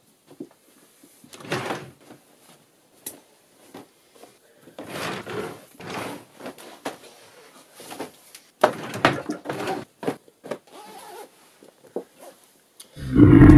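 Clothes being rummaged through in a chest of drawers, with a drawer sliding and scattered bumps and rustles. Near the end a much louder, low roar starts.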